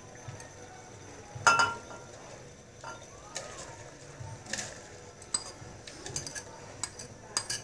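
Metal fork clinking and scraping against a ceramic bowl while scraping out mashed orange: a run of sharp clinks, the loudest about a second and a half in with a brief ring, then lighter clinks every half second to a second.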